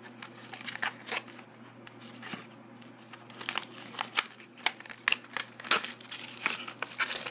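Plastic packaging crinkling and rustling as it is handled and pulled open, in irregular crackles that grow busier about halfway through.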